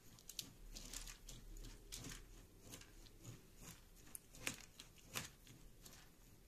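Faint scraping and light clicks of a metal spoon stirring soaked basmati rice and spices in a bowl, with two sharper clicks about two-thirds of the way through.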